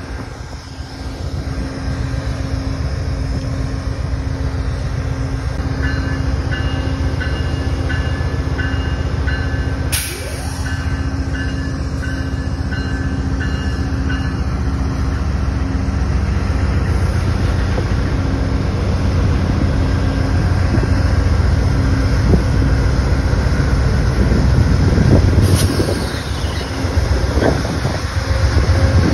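Amtrak GE Genesis diesel-electric locomotive and its passenger train approaching and passing close by. The engine and wheels rumble heavily, growing louder as the train arrives. A bell rings about twice a second for several seconds in the first half.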